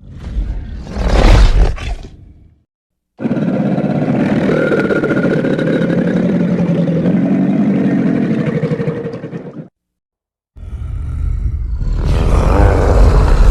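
Monster roar sound effects played one after another: a short roar, a brief silence, then one long roar of about six seconds, and after another gap a third roar that starts near the end and grows louder.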